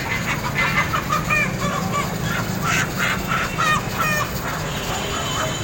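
Steel spatulas clanging rapidly on a flat iron griddle as meat is chopped taka-tak style: irregular ringing metallic clacks, several a second.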